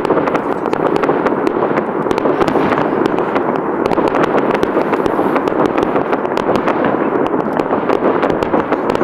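Fireworks crackling continuously: a dense stream of sharp pops blending into a steady rush, with no single big bang standing out.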